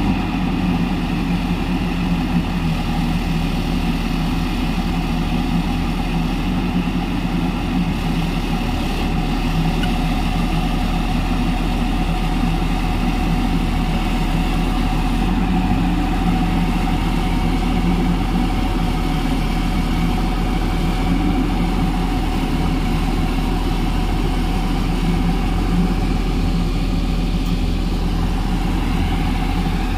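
Diesel engine of an IMT A 215 crawler piling rig running steadily, an even engine hum with no change in speed.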